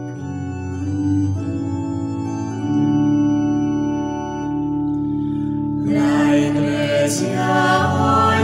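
Organ playing an introduction of held chords; about six seconds in, a choir begins singing a Spanish-language wedding hymn over the organ.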